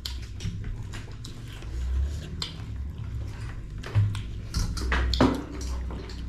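Close-up chewing and mouth smacking of people eating rice and pork curry, with scattered small clicks, over a low steady hum.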